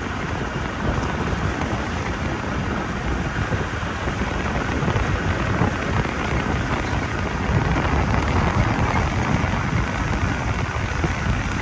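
Steady rushing road noise of a vehicle driving over a wet, snowy road at night, with tyre and wind noise and a low uneven rumble throughout.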